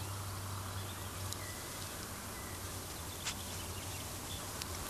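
Steady hiss and low hum of an old film soundtrack, with a few faint clicks and a couple of faint short chirps.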